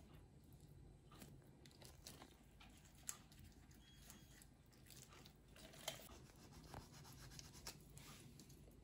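Near silence with faint wet handling sounds of raw chicken skin being cut with a small kitchen knife and pulled away from the meat, with a couple of sharper soft ticks about three and six seconds in.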